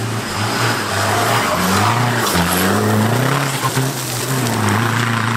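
Off-road 4x4's engine revving up and down under load, its pitch rising and falling repeatedly, over a loud rushing noise.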